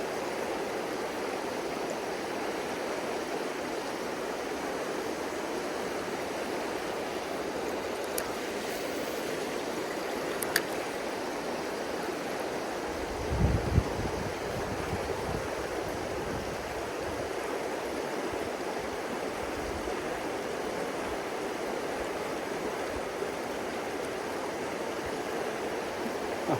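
Shallow river water running steadily over riffles, an even rushing. About halfway through there is a brief low rumble, the loudest moment.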